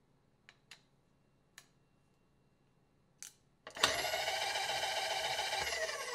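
A few light clicks, then an AL310 mill table power feed motor starts with a whine about two thirds of the way in, drives the table steadily, and winds down, falling in pitch, near the end as the table reaches the limit switch and the feed cuts out.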